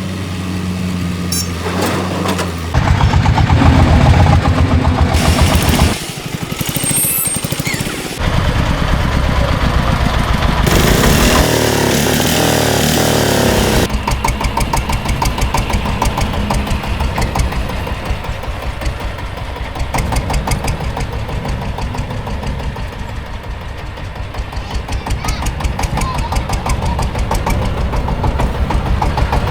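Diesel engines of heavy construction machinery running. Over the first half the sound changes abruptly every few seconds, from one engine to the next. After that one engine runs steadily with an even, fast knocking beat.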